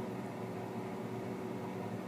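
Steady low hum with a faint even hiss: room background noise from a running machine or electrical hum.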